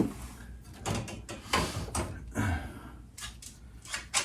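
Chainsaw and its bar being handled: a series of irregular knocks, clunks and light rattles, about one every half second to a second.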